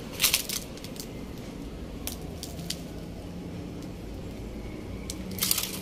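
Footsteps scuffing and crunching on a debris-strewn concrete floor: a few scattered short crunches, then a quick run of them near the end, over a low steady rumble.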